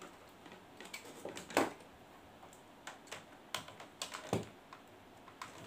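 A battery charger and battery pack being handled and set down on a tabletop: a scatter of light plastic clicks and knocks, the sharpest about a second and a half in and a few more around four seconds in.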